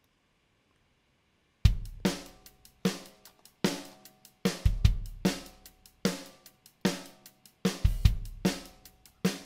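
EZDrummer 3 virtual drum kit playing back a programmed MIDI drum groove: a steady beat of kick, snare, hi-hat and cymbals. It starts about a second and a half in, after a moment of silence.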